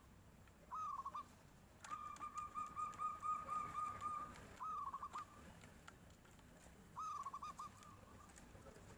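Zebra dove (perkutut) cooing: short phrases that swing up and break into a quick trill of soft notes, about three times. A longer run of rapid even notes at the same pitch fills the gap between roughly two and four seconds in.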